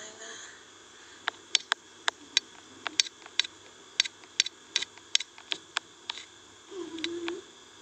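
A run of sharp, irregular clicks or taps, about twenty over five seconds, followed by a short low hum near the end.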